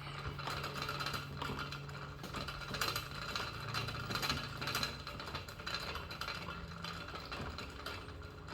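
Allen wrench tightening the handle's screw on a gun chassis: a run of small metal clicks and scrapes, over a low steady hum that stops about seven seconds in.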